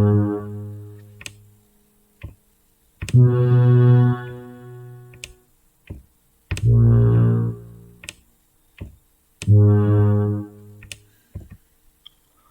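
Low synthesizer notes from Rast Sound's Sounds of Mars sci-fi sample library, played one at a time by mouse on an on-screen keyboard. One note is already sounding, then three more start about three seconds apart, each fading away over a second or two, with soft mouse clicks between them.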